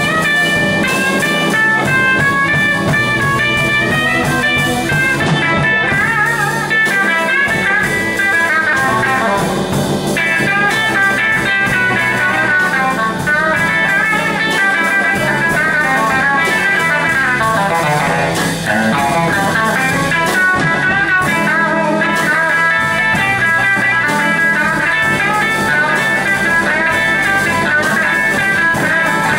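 Telecaster-style electric guitar playing a blues solo, single-note lines with bent and wavering notes, over a band with drums.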